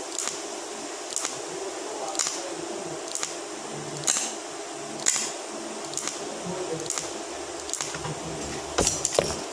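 TIG welding arc on 304 stainless steel sheet with a filler rod fed in: a steady hiss with a sharp tick about once a second, and a few louder clicks near the end.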